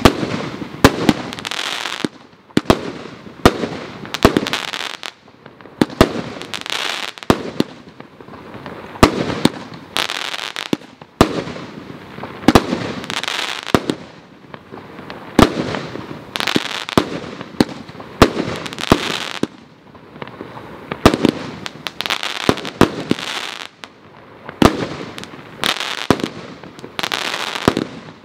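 Weco 'Mythos' consumer firework battery firing shot after shot, about one a second or a little faster. Each sharp bang is followed by a hissing tail of about a second as the burst spreads.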